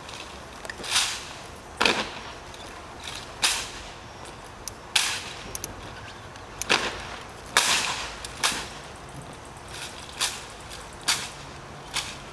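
Sharp, separate clacks and slaps of a Marine Corps silent drill platoon's rifle drill: hands striking M1 Garand rifles and rifles and heels meeting the pavement, about ten in all, one every second or so.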